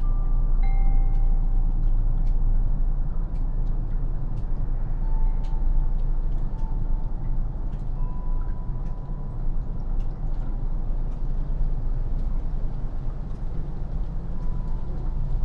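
A steady low rumble, with a few wind-chime notes ringing out and fading slowly, and scattered faint sharp ticks of melting snow dripping.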